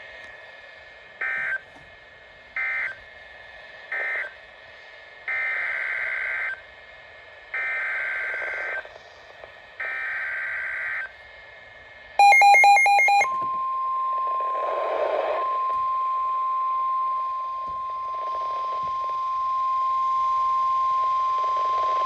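Electronic beeps from a Midland weather alert radio's speaker, three short then three longer, followed about 12 seconds in by a one-second burst of warbling digital data tones, the EAS header of a new alert. Then the steady, single-pitched NOAA Weather Radio warning alarm tone starts and holds to the end.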